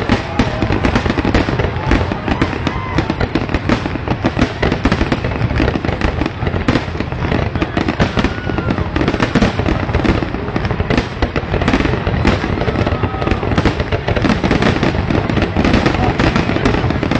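Fireworks display bursting continuously: a dense, unbroken run of bangs and crackles, many per second, with no pause.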